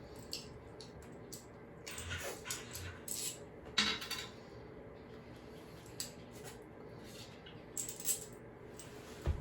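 Scattered light metallic clinks and knocks from small metal hardware being handled, the loosened toilet tank bolts, nuts and washers, with a cluster of them a couple of seconds in and a few single clinks later.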